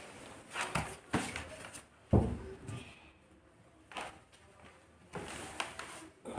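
Scattered light handling knocks with one dull thump about two seconds in, then a cloth rubbing across the board surface near the end.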